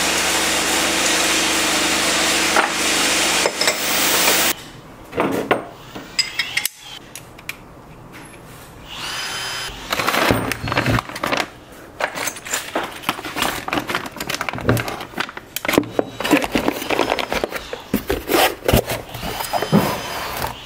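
A steady machine drone for about four and a half seconds that cuts off abruptly. After it, a clear plastic bag crinkles and rustles in quick irregular crackles as it is handled, with light knocks of a cardboard box near the end.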